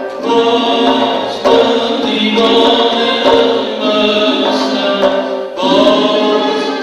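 Live Persian classical music: a male singer sings long held phrases over an ensemble of tar, oud, ney and tombak, with short breaks between phrases about a second and a half in and again near the end.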